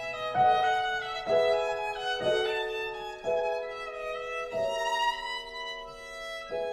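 Background music led by a violin, playing a slow melody of held notes that change about once a second.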